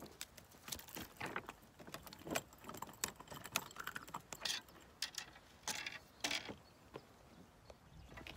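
Irregular light clicks and rattles of a spinning rod and reel being handled as the angler moves over the shoreline rocks.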